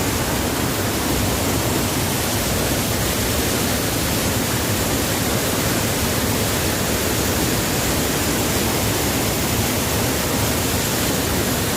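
Small waterfall pouring down, a steady, unbroken rush of falling water.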